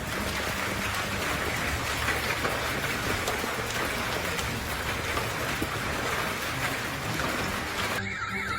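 Heavy storm rain falling in a steady hiss, with scattered small hits. About eight seconds in it cuts abruptly to a car alarm's warbling siren.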